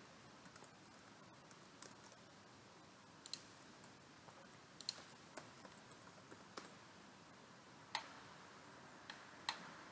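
Near silence with sparse, irregular light clicks of a computer mouse and keyboard, about a dozen in all.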